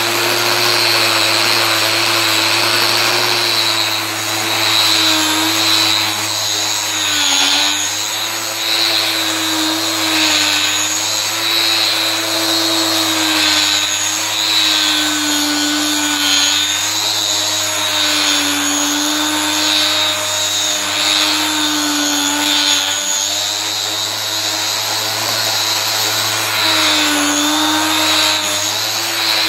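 Electric power tool running continuously, its motor note sagging briefly every few seconds as it is pressed to the work, with a hiss of abrasion: sanding and cleaning an engine's gasket mating surface.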